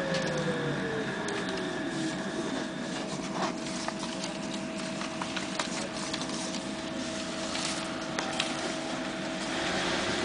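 Bogdan trolleybus ride: the electric traction drive's whine falls in pitch over the first couple of seconds as the trolleybus slows. A steady two-tone electrical hum follows, with road noise and scattered clicks, as it rolls slowly.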